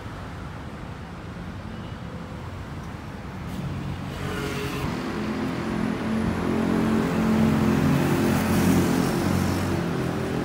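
Road traffic on a busy city street, with a motor vehicle's engine drawing closer and growing louder from about four seconds in, loudest near the end, then easing slightly.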